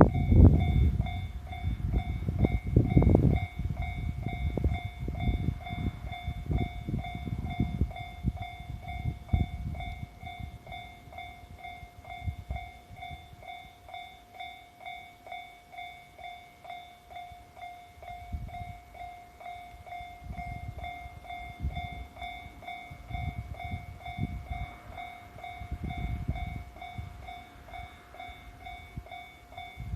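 A Japanese level crossing's electronic warning bell repeats steadily throughout while an E501 series electric train rumbles past over the rail joints, loudest at the start and fading over the first ten seconds. Low rumbles of a train return in the second half.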